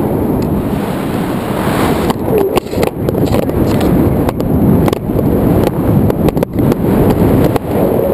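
Wind buffeting the microphone of an action camera held out on a pole from a tandem paraglider in flight: a loud, low rush of wind noise with irregular crackles and brief dropouts.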